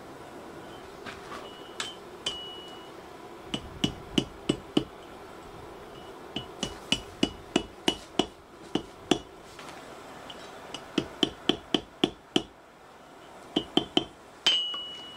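Forging hammer striking a red-hot chain link on the anvil horn, each blow ringing the anvil. The blows come in runs of about three a second, and a louder last blow near the end rings on.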